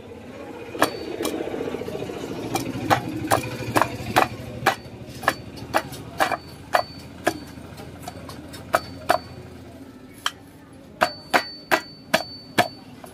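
Sharp metallic clicks and taps, about twenty at irregular intervals and some ringing briefly, as steel engine parts are fitted by hand into an aluminium motorcycle crankcase. A low hum runs underneath and fades out about ten seconds in.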